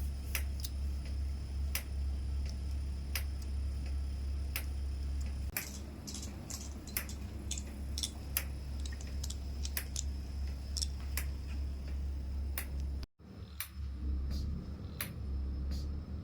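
Vacuum massage machine running: a steady low pump hum with sharp clicks at a regular pace, about one every 0.7 s at first and closer together later. The hum drops away about five seconds in and returns near the end, after a brief cut-out.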